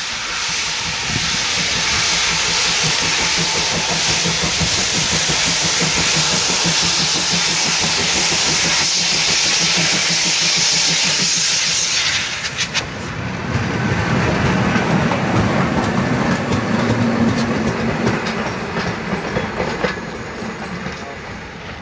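Steam locomotive blowing off a loud, steady hiss of steam that cuts off about twelve seconds in, followed by the lower, uneven running noise of the train moving on the track.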